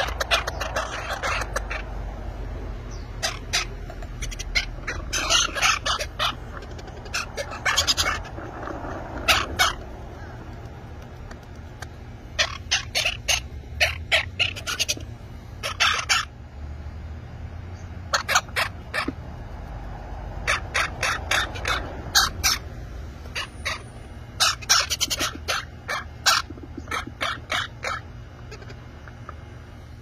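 Baby parrot chicks giving their begging calls during hand feeding: clusters of short, rapid, high squeaky calls, repeated every second or two with short pauses between. A steady low rumble runs underneath.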